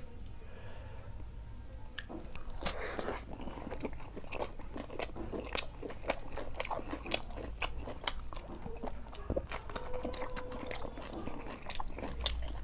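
A person chewing a mouthful of puri soaked in chicken curry, close to the microphone: a dense run of quick mouth clicks from about two seconds in.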